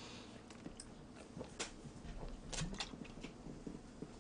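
Faint mouth sounds of a person drinking cola from a plastic bottle and chewing: a few soft clicks and smacks, the clearest about one and a half seconds in.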